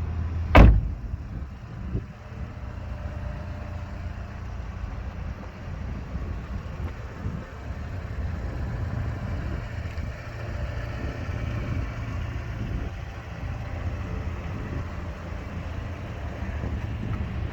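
Vauxhall Cascada's engine running with a steady low rumble, with one sharp thump about half a second in and a lighter knock about two seconds in.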